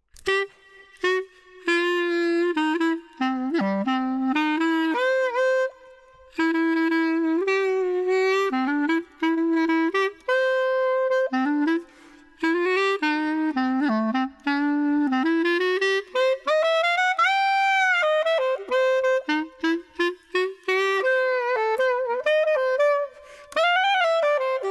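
Solo clarinet playing a melody in short phrases with brief pauses between them. Some notes bend and waver in pitch, and there is a long high note that swells up and back down about two-thirds of the way through.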